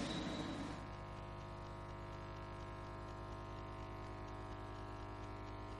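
Faint, steady electrical mains hum with many overtones. A noisier sound fades out during the first second.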